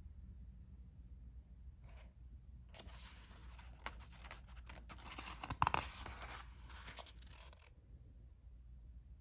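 A page of a picture book being turned by hand: paper rustling and sliding for a few seconds, with the loudest flap of the page a little past halfway.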